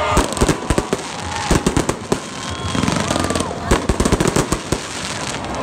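Aerial fireworks bursting: a rapid, irregular series of bangs and crackles.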